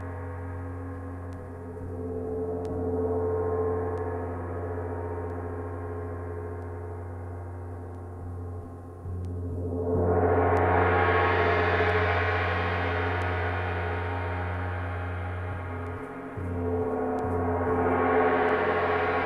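Gong played in long swelling washes over a steady low drone. The shimmering sound builds up strongly about ten seconds in and swells again near the end.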